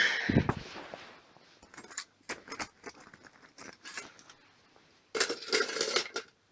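Small metal parts from a scrapped microwave clinking and clattering as they are handled: a loud knock at the start, a few sharp clicks about two seconds in, then a burst of rattling clinks near the end.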